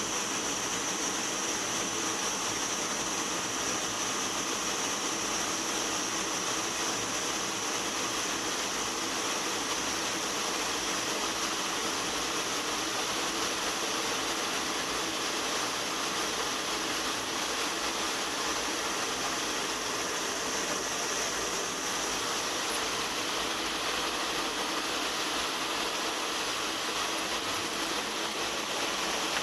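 Cockpit noise of an A-10 Thunderbolt II in flight: its twin turbofan engines and the rushing air make a steady hiss with a high whine held above it.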